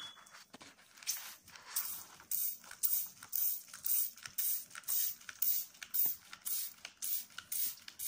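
Hand-held trigger spray bottle squirted over and over, about twice a second, each squeeze a short hiss of water mist, misting an African grey parrot's feathers.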